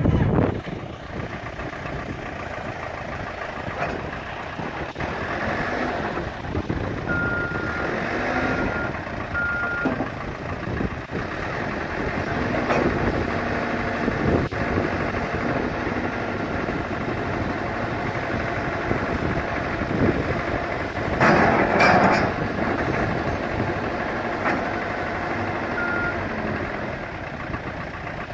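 Caterpillar 420D backhoe loader's diesel engine running and working, with its reversing alarm beeping three times about eight seconds in and once more near the end. A louder, noisier stretch comes a little past the middle.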